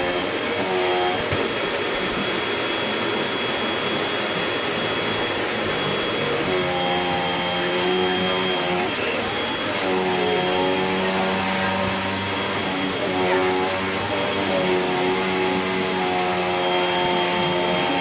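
Vacuum cleaner running continuously with a steady high whine. A lower hum comes and goes several times as the machine is pushed around.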